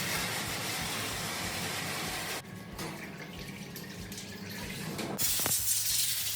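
Liquid running and splashing from a parts-washer tap as an engine piston is rinsed. The flow weakens about two and a half seconds in and comes back stronger near the end.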